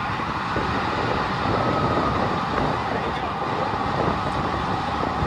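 Steady rush of breaking sea surf, with wind on the microphone.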